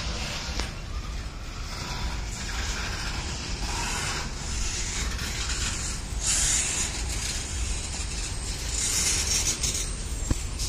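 Intermodal freight cars rolling slowly past: a steady rumble of steel wheels on rail with metallic rattling, and two surges of high hiss about six and nine seconds in.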